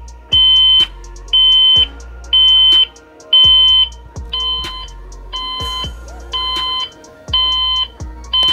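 Core Innovations Galileo alarm clock's alarm going off: a loud electronic beep, about once a second, each beep half a second long, under background music.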